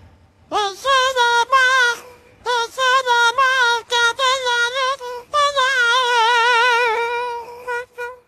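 A high, childlike puppet voice singing without accompaniment, in short wavering phrases with heavy vibrato that stay close to one note, then a longer held note before it trails off near the end.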